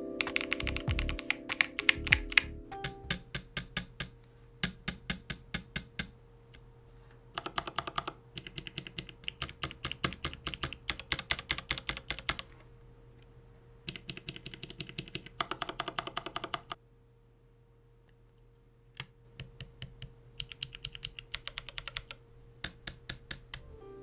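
Keys of a Geonworks Frog Mini mechanical keyboard being pressed in quick typing runs with short pauses: Geon Clear switches on a POM plate, some under GeekArk Triangle keycaps and some still bare. Background music fades out a few seconds in.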